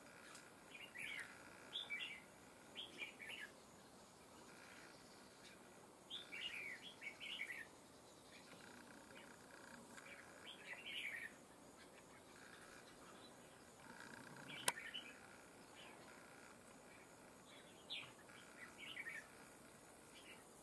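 Red-whiskered bulbul singing: about five short phrases of quick whistled notes, a few seconds apart. A single sharp click comes about two-thirds of the way through.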